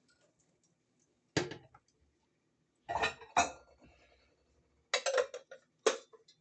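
Dishes and cutlery being handled: a few separate clinks and clatters spread out, with quiet between them.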